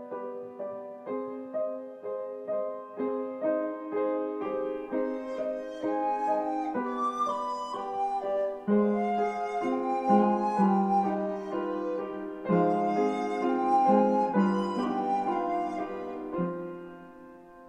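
Recorder and piano playing a slow classical piece. It opens on repeated piano notes, the recorder's sustained melody comes in over them after a few seconds, and the music fades near the end.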